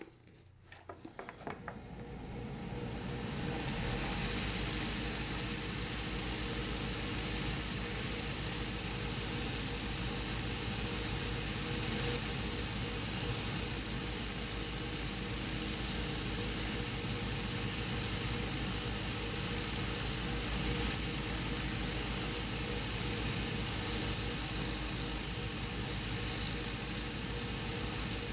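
A few knife clicks as a boot's new sole edge is trimmed, then a cobbler's finishing machine comes up over the first few seconds and runs steadily, the boot's sole edge held against its spinning sanding wheel.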